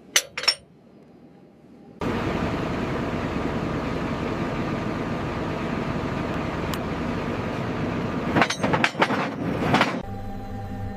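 A couple of light metallic clinks, then a loud, steady mechanical rumble that starts abruptly about two seconds in. Several clanks come near the end, and the rumble gives way to a quieter steady hum.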